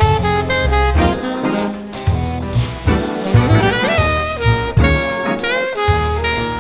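Background jazz music: a saxophone-like lead melody with sliding notes over a steady drum beat and bass.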